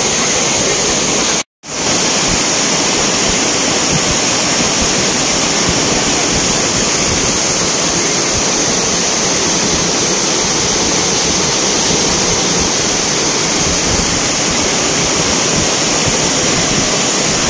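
Muddy floodwater rushing in a torrent down a rocky cascade, mixed with the hiss of heavy rain: a loud, steady rush of water that cuts out for a moment about a second and a half in.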